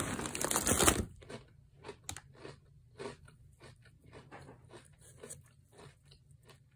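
Foil snack bag rustling loudly for about a second as a hand reaches into it, then a person chewing crunchy Koikeya Karamucho spicy curry chip sticks with soft crunches a few times a second.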